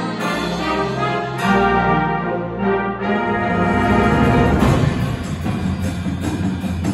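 Concert band playing a full-ensemble passage: sustained brass and woodwind chords over timpani, with a fresh attack about a second and a half in and heavier low brass and percussion in the second half.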